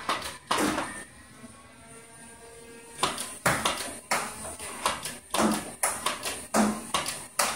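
K'Nex K-Force blaster's electric flywheel motors running with a faint hum. Over it comes a run of sharp knocks, one near the start and then about two a second from about three seconds in.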